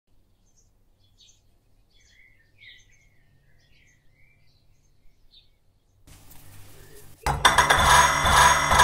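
Faint, scattered bird-like chirps, then from about seven seconds in a loud clatter and scraping of kitchen utensils and a china plate being handled.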